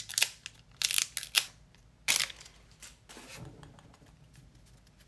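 Trading cards and a foil pack wrapper being handled: several short, sharp crinkling and scraping rustles in the first couple of seconds, then quieter.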